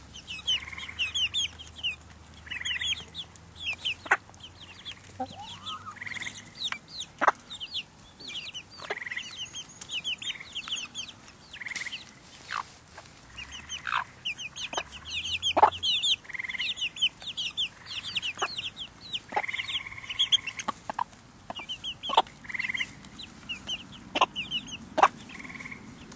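A flock of chickens with young chicks: the chicks peep in rapid high runs throughout, while the hens cluck, with scattered sharp short clucks standing out as the loudest sounds.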